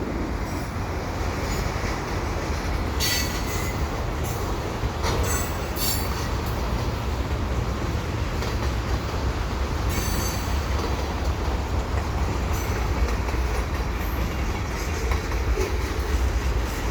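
Freight train cars rolling past: a steady rumble of steel wheels on the rails, with brief high-pitched wheel screeches a few times.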